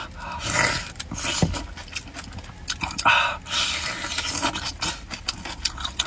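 Close-miked eating sounds: wet chewing and smacking clicks with several loud, breathy, huffing breaths.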